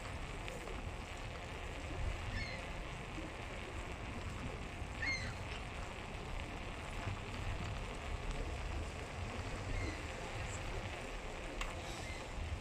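Steady wind buffeting and road noise from a moving bike, with a few short high chirps scattered through.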